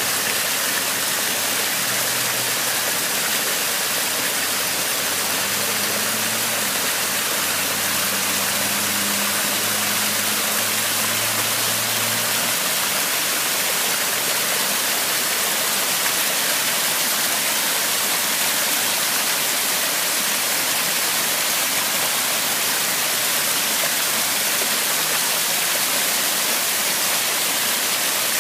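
Steady rushing of flowing water, an even hiss that doesn't change, with a faint low hum underneath that fades out about twelve seconds in.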